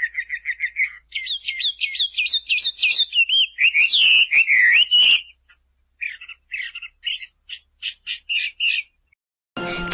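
Small songbird calling: fast runs of high chirping notes, some swooping up and down, then after a short pause a string of separate short chirps.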